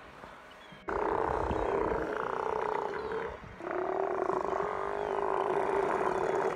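Sea lions calling in long, low, drawn-out calls. The first starts abruptly about a second in and breaks off at about three and a half seconds; a second runs on until near the end.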